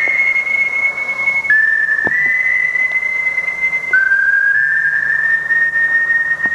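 A high, pure whistling tone held in long notes. A new note starts about a second and a half in and another near four seconds in, each entering a little lower and then stepping up in pitch.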